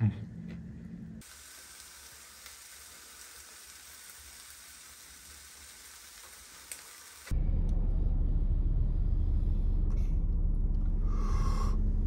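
Food sizzling in a frying pan for about six seconds, then a sudden cut to a louder steady low rumble inside a car, with a short exhale near the end.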